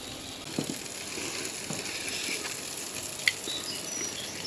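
Fish fillets in a foil tray and chicken sizzling on a charcoal kettle grill, with one sharp click about three seconds in as metal tongs touch the tray.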